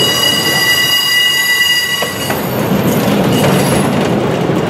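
Freight cars of a CN manifest train rolling past, wheels rumbling on the rails. A steady high-pitched wheel squeal stops about two seconds in.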